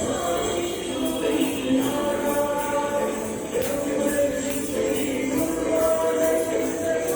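Music with a group of voices singing held notes over a steady jingling, tambourine-like beat.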